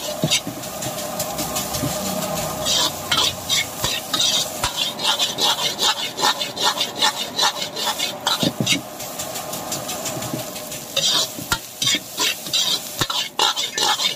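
Metal ladle scraping and knocking against a steel wok in quick repeated strokes as fried rice is stir-fried, with the rice sizzling in the hot pan.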